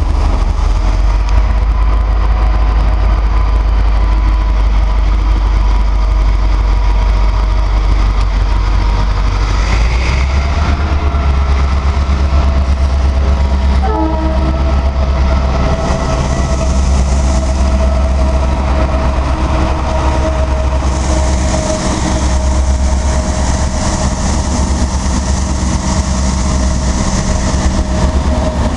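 TCDD DE 22000-class diesel-electric locomotive passing through a station at speed with a passenger train, its horn sounding. The heavy diesel rumble deepens as the locomotive draws level about a third of the way in. From about two-thirds through, the coaches roll by with a rising hiss of wheel-and-rail noise.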